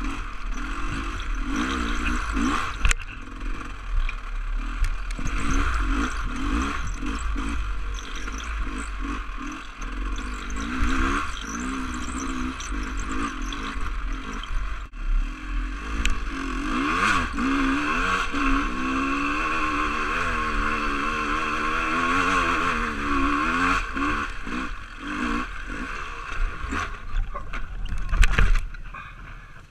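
Two-stroke dirt bike engine, a GasGas 300, revving up and down with the throttle on a muddy rutted trail, with the chassis clattering over the bumps. Near the end there is a loud knock as the bike goes down on its side.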